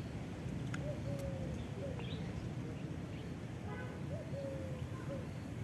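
A bird calling repeatedly, about four times: each call is a short rising note followed by a longer, slightly falling held note. Under it runs a steady low rumble.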